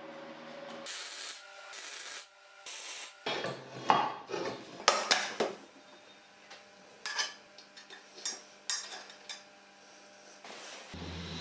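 Steel frame parts being handled and shifted on a concrete workshop floor: scraping, then a run of sharp metal knocks and clanks, the loudest a little after the first third.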